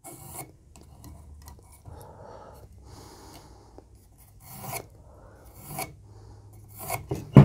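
Pencil scratching a line onto a wooden block in a series of short strokes.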